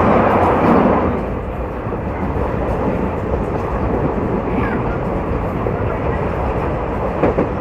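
Passenger train running, a steady rumble of the wheels and carriage on the track, a little louder for the first second, with a short knock near the end.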